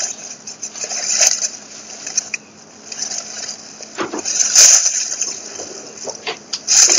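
Dry leaf and bamboo-leaf litter rustling and crackling as a caught rooster is handled and shifts about on the ground. There are a few sharper crackles, the loudest about four and a half seconds in.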